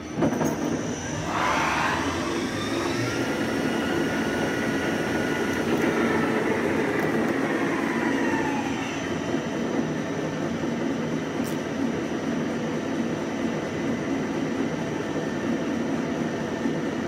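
Dainichi BX45 CNC lathe spindle spinning up with a rising whine about a second in, holding a steady whine, then slowing with a falling whine around eight seconds, over the machine's steady running hum. A new rising whine starts at the very end.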